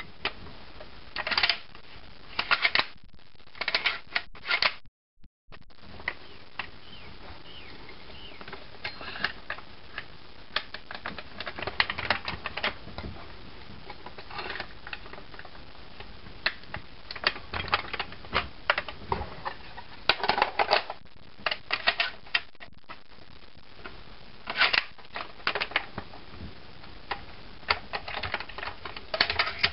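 Irregular clusters of sharp clicks and rattles from the parts of an airsoft rifle and an M203 grenade launcher being handled and fitted together.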